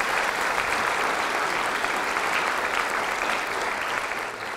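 An audience applauding, a dense steady clapping that starts to die down near the end.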